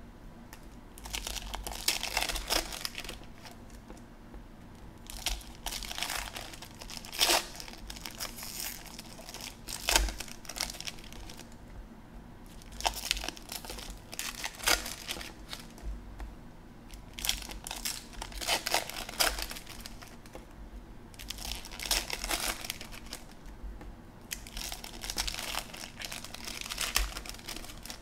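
Foil wrappers of baseball card packs crinkling and tearing as packs are opened, with cards rustling as they are handled, in irregular bursts with short pauses between.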